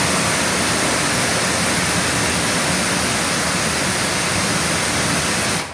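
Kärcher HD 9/20-4 pressure washer spraying from its trigger gun: a loud, steady hiss of the high-pressure water jet that cuts off suddenly near the end when the trigger is released.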